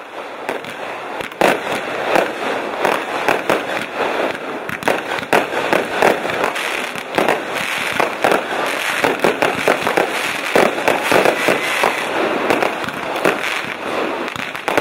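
Fireworks going off in rapid succession, many bangs and crackles overlapping without a pause.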